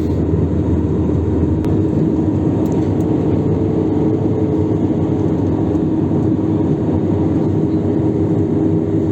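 Steady engine and air noise inside an airliner's passenger cabin in flight: a constant low rumble with a steady hum.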